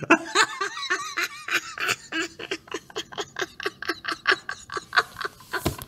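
A man laughing hard in rapid breathy pulses, about five a second, some of them voiced.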